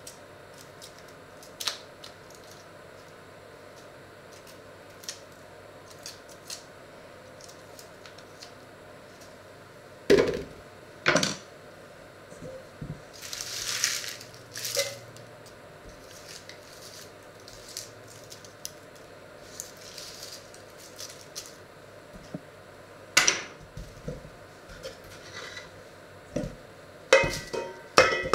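Hard-boiled eggs being peeled by hand over a wooden cutting board: scattered small clicks and crackles of eggshell, with a few louder knocks. Near the end, a quick run of clatters as the shells are swept off the board into a metal bowl.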